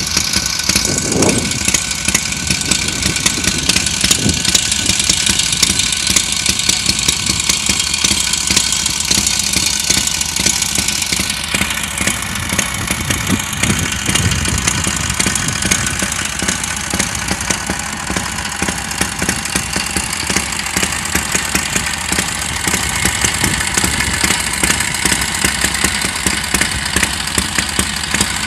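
BMW R42 500 cc side-valve flat-twin engine running steadily at idle. The engine has been freshly rebuilt and is running again after some fifty years laid up.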